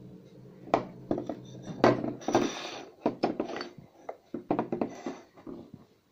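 Pieces of a broken ceramic mug being handled and set down on a hard tabletop: a series of irregular clinks and knocks with brief scraping.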